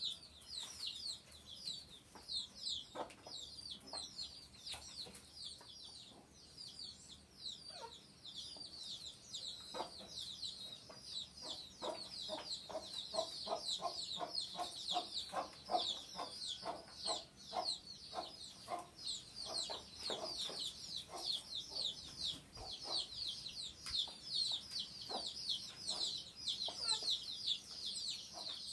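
Chickens: a steady stream of rapid, high, falling peeps, with a run of quick clucks, about three a second, from about ten seconds in to past the twenty-second mark.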